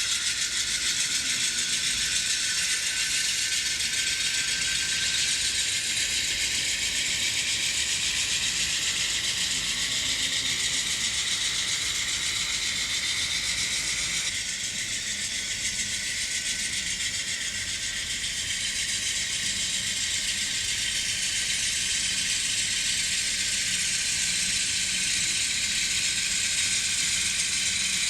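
N scale GE Dash 9-44CW model locomotives running on track: a steady whir of small motors and gears with a rattling clatter. The pitch rises slowly and eases off again.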